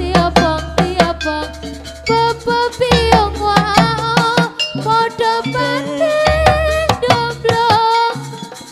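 Live Javanese folk music: quick drum and struck-percussion beats under a wavering, vibrato-laden melody line, with a low steady bass tone that drops in and out.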